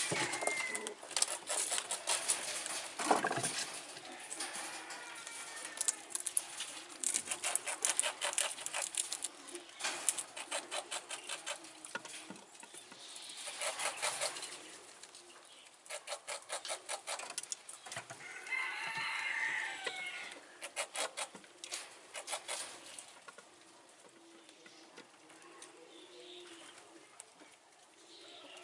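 Chickens clucking in rapid runs, with a few longer crowing calls.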